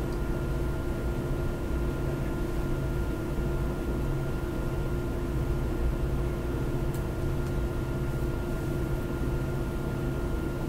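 Steady background hum with a few constant low tones, like equipment or ventilation noise in a small room, unchanged throughout.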